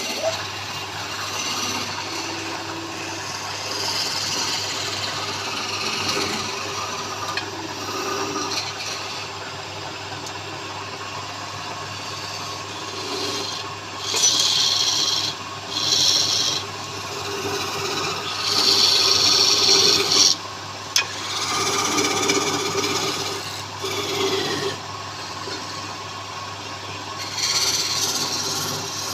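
Wood lathe running with a steady hum while a tool scrapes against the spinning wood in repeated bursts, loudest in the second half.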